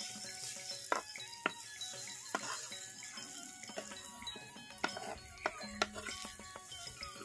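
A steel spatula stirring diced potato, tomato and onion sizzling in oil in a clay pot, with about seven sharp knocks of the spatula against the pot, over background music.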